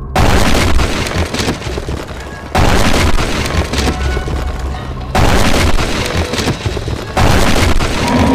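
Cartoon crash sound effect of metal cages slamming down, four times, each a sudden loud boom that fades out in a noisy rumble, about two and a half seconds apart.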